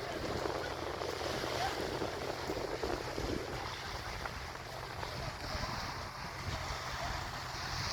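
Wind buffeting the microphone over the steady low rumble of a car ferry under way, with water washing along the hull.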